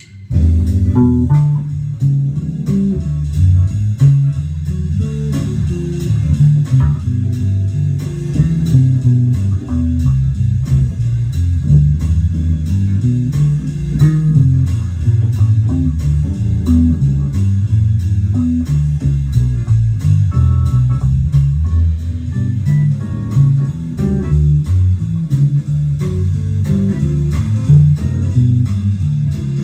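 Music led by a low bass line of changing notes over a steady ticking beat, starting suddenly just after the start.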